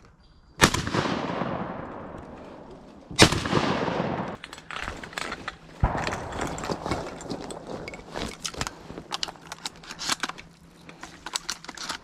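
Shotgun blasts at ducks: two loud shots about two and a half seconds apart, each with a long rolling echo, then a third, quieter report about halfway through, followed by scattered small clicks and rustling.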